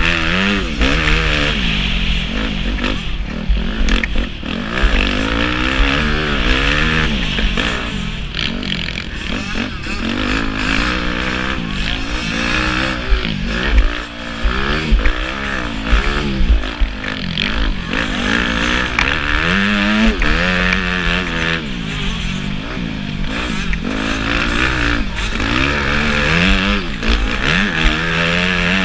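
Dirt bike engine revving up and easing off over and over, its pitch rising and falling every second or two as it is ridden hard round a dirt track.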